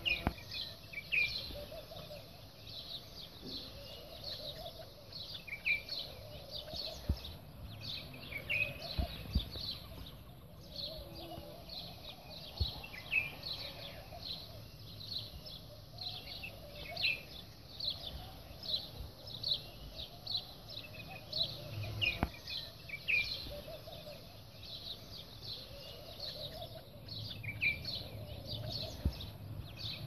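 Small birds chirping rapidly and without a break, with domestic pigeons cooing low underneath and a few soft knocks.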